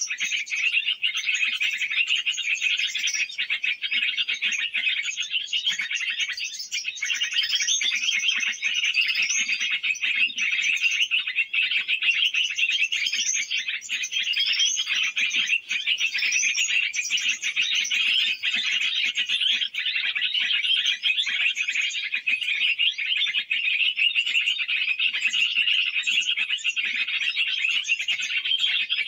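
Dense, unbroken chatter of many small birds, with a steady mass of high chirps and quick rising and falling notes layered over it.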